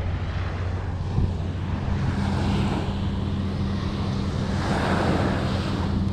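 Wind buffeting the microphone, with small waves washing onto a sandy beach that swell twice, and a steady low hum underneath.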